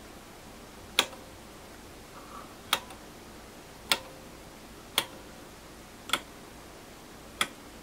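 Rotary decade switch on a Keithley 260 nanovolt source being turned one detent at a time, giving six sharp clicks about a second apart.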